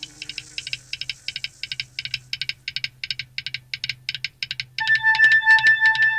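Fast, even mechanical ticking, about five clicks a second. Near the end a steady high tone sets in over the ticking and the sound gets louder, as music begins.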